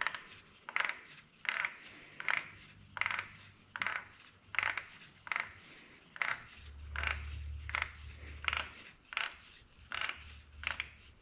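Plastic oil filter housing cap of a Ford Fusion Sport being spun down its threads by hand. It gives a short rasp with each turn, about one every three-quarters of a second.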